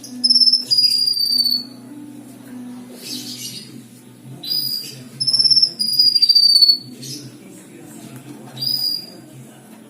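Cucak kinoi songbird singing loud, clear whistled phrases. Each note slides slightly downward, in three longer bursts and a short one near the end.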